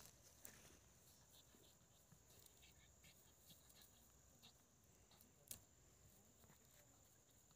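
Near silence: a faint, steady, high-pitched insect trill, with a few faint short clicks, the loudest about five and a half seconds in.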